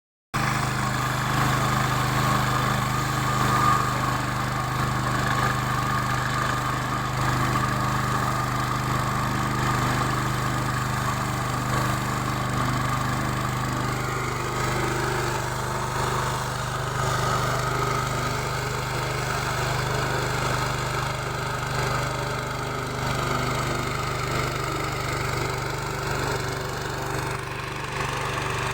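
Diesel locomotive engine running steadily, a low, even engine hum with no change in speed.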